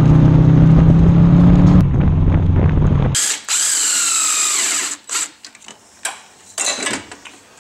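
A Subaru driving on a gravel road: engine drone with tyre and wind rumble, cutting off suddenly about three seconds in. Then a cordless DeWalt power tool whirs for about two seconds, its pitch falling, followed by a few light clicks.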